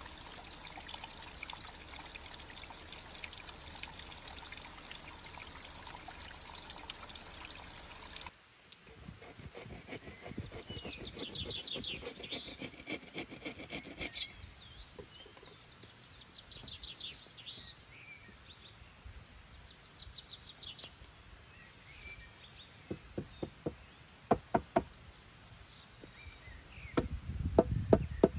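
Water trickling down a wet, mossy rock face: a steady splashing hiss that cuts off about eight seconds in. Near the end comes a string of sharp wooden knocks from logs being handled, growing louder and more frequent.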